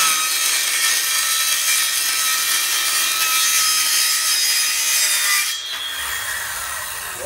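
An 18-volt cordless circular saw rips through a sheet of masonite hardboard, cutting steadily for about six seconds. Near the end the blade clears the sheet and the motor runs on more quietly for another second or so before it stops.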